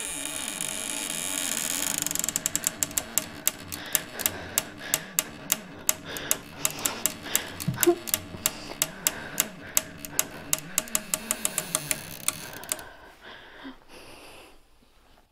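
Horror-film sound design: a hiss swells up, then gives way to a long run of sharp clicking taps over a low steady drone. The taps come many a second at first, then slow, and stop suddenly about two and a half seconds before the end.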